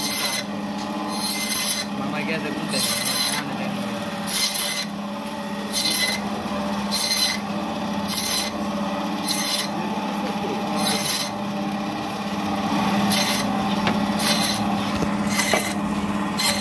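Band saw running with a steady hum while its blade cuts rohu fish slabs into chunks. Each pass through the flesh and bone gives a short, high-pitched grating burst, about once a second.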